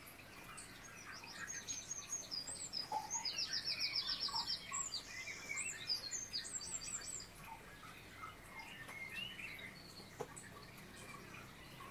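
Several small birds chirping and singing: many quick high chirps and slurred whistles, with a fast trill about three and a half seconds in, busiest in the first seven seconds and thinning out after.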